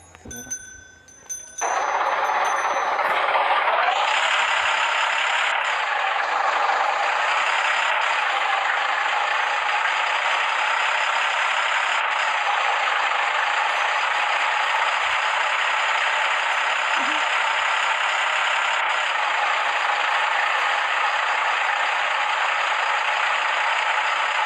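Road construction machinery running with a steady, even rushing noise, starting about a second and a half in after a brief quiet gap.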